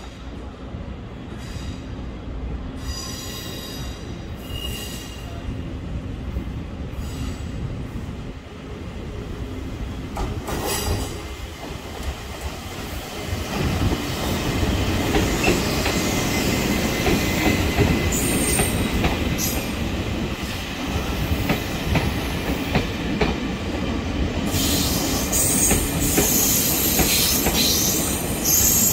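Taiwan Railways E400-class electric locomotive hauling a rake of passenger coaches into a station. High wheel squeals are heard as it approaches. About halfway through it grows louder, with a steady rumble and wheel clatter as the locomotive and coaches pass close by, and sharp squeals return near the end as the coaches roll past.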